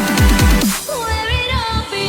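Electronic dance music with a dubstep-style bass line of repeated falling sweeps; a little under halfway through, the bass drops out into a short break of gliding synth tones and a few bass hits.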